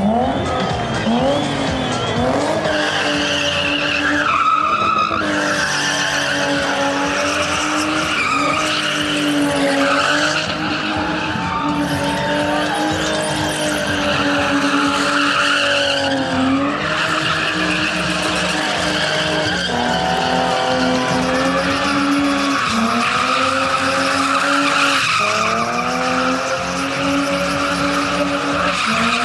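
A BMW spinning in tight circles: the engine is held at high revs while the rear tyres squeal and slide continuously. The revs dip briefly and climb again a few times.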